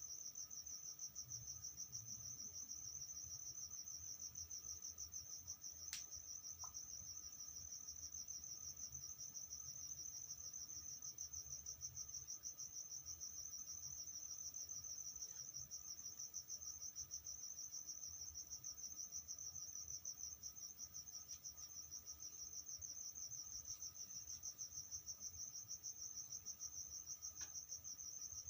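A cricket trilling continuously in a fast, even, high-pitched pulse, with a single sharp click about six seconds in.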